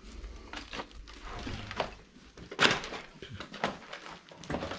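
Irregular knocks, clicks and scuffs of people moving about in a small cellar and handling objects, with one sharper knock a little before the middle.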